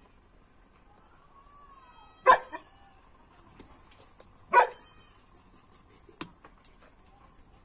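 A muzzled Tibetan mastiff barking twice, two short barks a little over two seconds apart.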